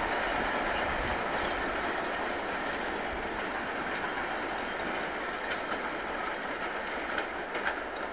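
Train hauled by a PKP class Ol49 steam locomotive rolling away along the track, a steady rumble that slowly fades, with a few faint clicks of wheels over rail joints in the second half.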